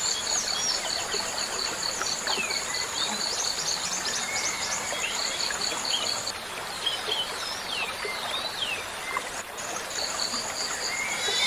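Water running into a fish pond under short chirps of small birds, with a high, evenly pulsed trill that stops about six seconds in and returns near the end.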